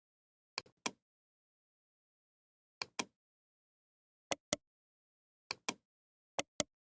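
Computer mouse double-clicking: five quick pairs of sharp clicks at irregular intervals, with silence in between.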